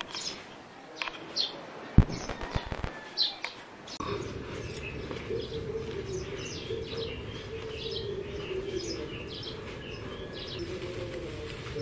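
Small birds chirping repeatedly, short high calls. There is a sharp knock about two seconds in, and a steady low hum runs under the chirps from about four seconds.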